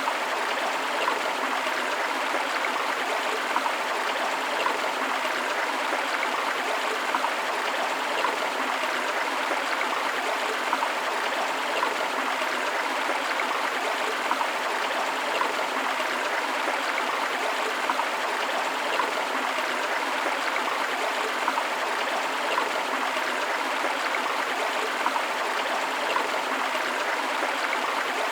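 River water flowing steadily: an even, unbroken rush of water.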